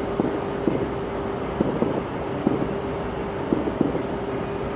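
Distant fireworks shells bursting about 3 km away, heard as about seven dull, muffled thuds at irregular intervals over a steady hum and rumbling background noise.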